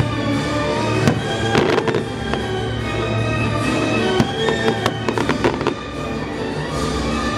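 Fireworks bursting, with sharp bangs and crackles coming in clusters, over orchestral music.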